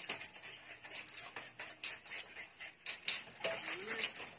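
Hands scrubbing a wet, soapy Doberman puppy's coat, with many small clicks and a patter of dripping and splashing water on a tiled floor. A short rising-then-falling call comes about three and a half seconds in.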